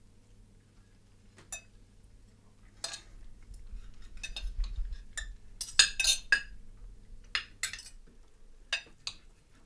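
Knives and forks clinking and scraping on dinner plates as two people eat, in short, irregular clinks that come thickest about halfway through, over a faint low hum.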